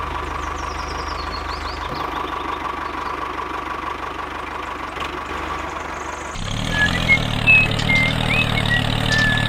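Tractor engine running steadily. About six seconds in it changes to a louder, deeper running sound.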